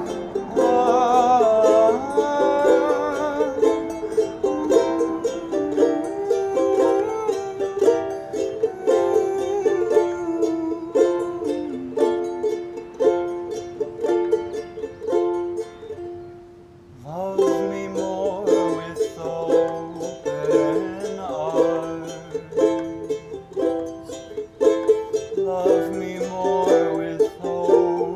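Bolivian charango, a small Andean lute, strummed and picked in its close tuning to make sparkly chords. The playing breaks off briefly about two-thirds of the way through, then resumes.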